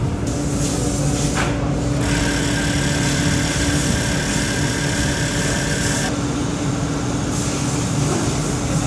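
Steady hum and whir of workshop machinery in a boot factory. A higher whirring comes in about two seconds in, drops out around six seconds and returns a second later.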